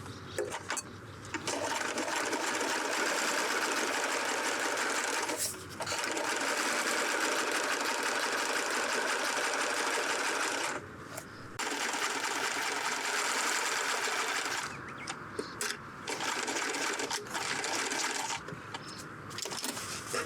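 Electric sewing machine stitching in long steady runs, pausing briefly about five and eleven seconds in, then running in short start-stop bursts near the end.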